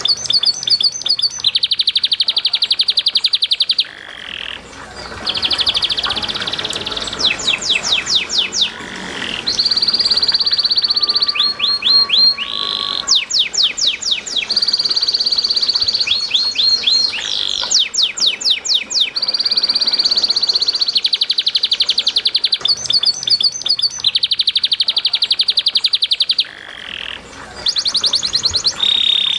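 Domestic canary singing a long, almost unbroken song of rapid high trills and rolls, mixed with strings of fast down-sweeping notes. The song breaks briefly about four seconds in and again near the end. Water trickles faintly underneath.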